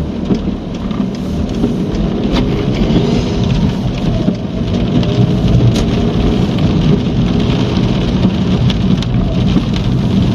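Heavy rain hitting a car as it drives, many small drop impacts over a steady low engine and road rumble, heard from inside the cabin.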